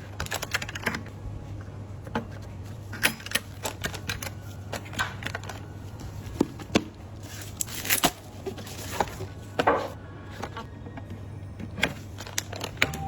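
Irregular clicks and taps of computer hardware being handled and fitted during a PC build, over a low steady hum.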